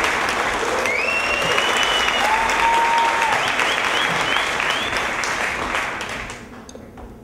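Concert audience applauding, with a few cheers rising above the clapping; the applause dies away near the end.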